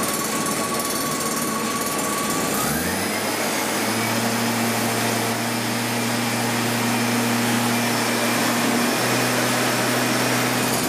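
Leaf blower running steadily, blowing down through a hovercraft's plywood base to inflate its skirt for a first hover test. About two and a half seconds in, its pitch rises as it speeds up, and a deeper steady drone joins it.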